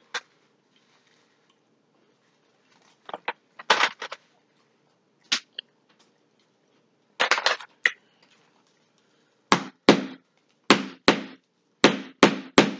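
A wooden crab mallet knocking on Alaskan king crab legs to crack the shells, a series of sharp knocks about two a second in the last third. Before that, scattered cracks and crunches of crab shell being broken apart.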